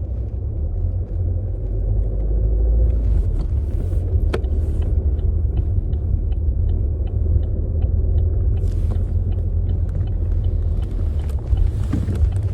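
Car cabin rumble from a car driving slowly in traffic. Midway a run of steady, evenly spaced ticks, about two to three a second, typical of a turn-signal indicator clicking ahead of a turn.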